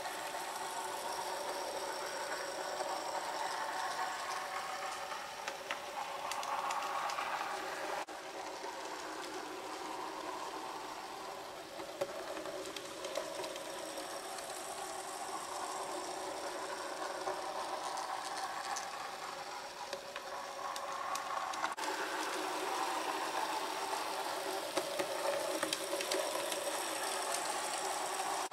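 Bachmann 009 narrow-gauge Mainline Hunslet model locomotive running round a tight oval of track, hauling small V-tippler wagons. The small electric motor and wheels make a steady whirr and rattle that swells and fades as the train comes near and goes away, with occasional light clicks.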